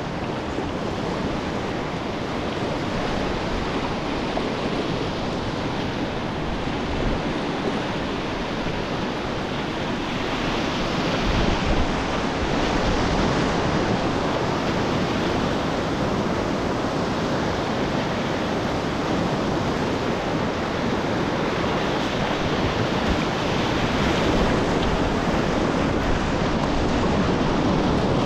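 Whitewater river rapids rushing steadily, heard close up from the kayak, growing a little louder from about ten seconds in.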